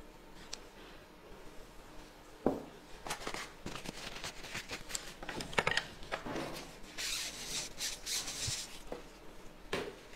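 Quiet tabletop handling: scattered light clicks of chopsticks against dishes, with rustling. A sharper click comes about two and a half seconds in, and a longer hissing rustle runs from about seven to nine seconds in.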